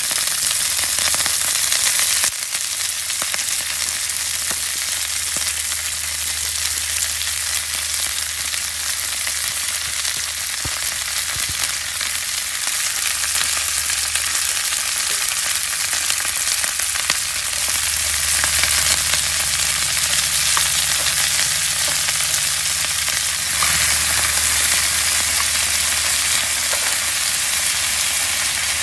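Chopped cabbage frying in hot oil in a nonstick skillet: a steady, loud sizzle and crackle, with a low hum underneath.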